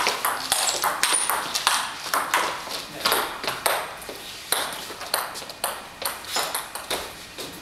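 Table tennis ball striking the table and bats, a rapid, irregular run of sharp clicks, several a second, some with a short high ring.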